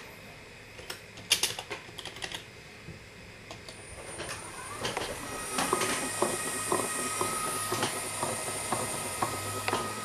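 A few taps on a computer keyboard. About four seconds in, an electric DC gearmotor driving a robot wheel spins up with a rising whine that levels off into a steady high whine, with light clicks about three times a second.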